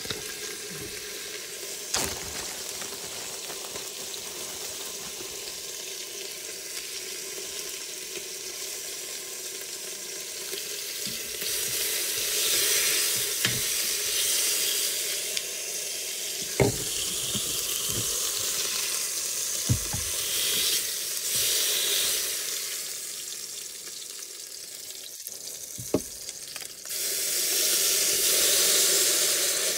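Beef short ribs sizzling as they sear in the hot pot of an electric pressure cooker, with silicone tongs knocking against the pot now and then. Near the end water is poured into the hot pot and it hisses up loudly with steam.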